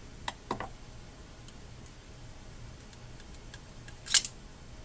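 Light metal clicks from handling a small chromed fishing-reel stand, side plate and screwdriver, with a sharper double click about four seconds in.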